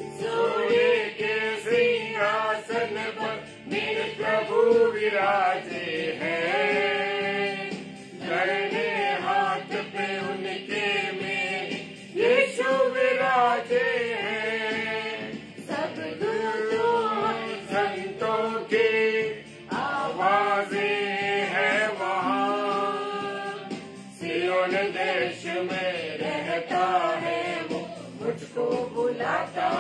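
A man and a woman singing a Hindi Christian devotional hymn together in long held phrases, over a steady low accompanying note.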